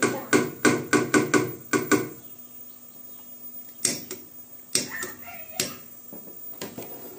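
Metal ladle knocking against a large aluminium cooking pot: a rapid run of ringing clanks over the first two seconds, then three single knocks a little under a second apart.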